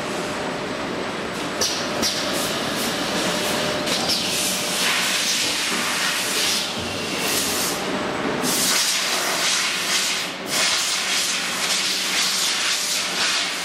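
Heat shrink tunnel running: the steady hiss of its hot-air blowers mixed with the clatter of the packing line, the hiss brightening and fading several times.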